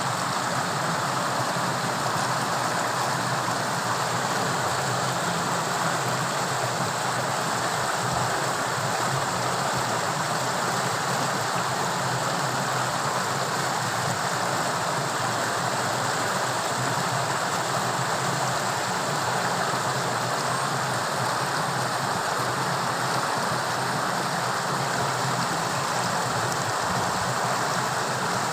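Torrential running water rushing steadily, a constant even roar of fast-flowing water.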